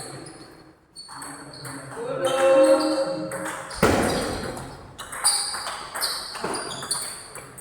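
Table tennis rally: the celluloid-type ball clicking sharply off bats and table, roughly two hits a second. A voice calls out briefly in the middle, and there is one heavier thump just before the middle.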